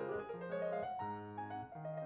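Soft background piano music, notes changing about every half second.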